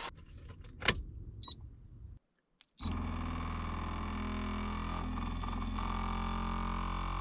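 Light handling clicks and rustling, then a small electric motor starts abruptly about three seconds in and runs at a steady pitch: the vacuum pump of an electric exhaust cutout (valvetronic) valve, switched on by its remote.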